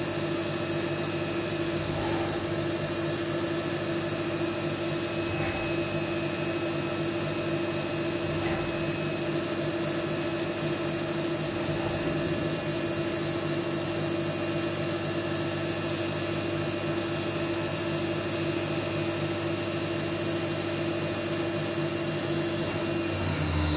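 CNC milling machine spindle running with a steady high whine while an end mill cuts aluminium under flood coolant spray. Near the end the whine falls in pitch as the spindle spins down.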